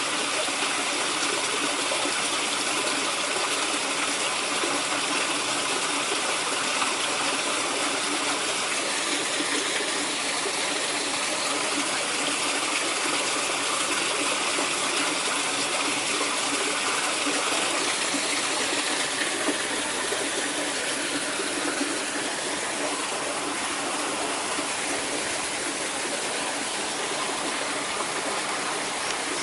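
Water rushing steadily, as from a small waterfall.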